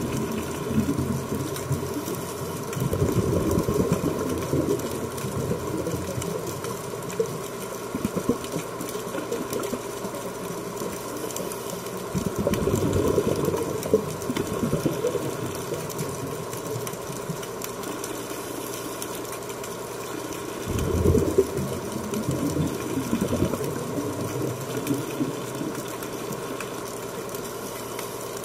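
Underwater ambience: a steady motor hum with a few fixed tones, and about every nine seconds a rushing burst of a scuba diver's exhaled bubbles lasting a couple of seconds.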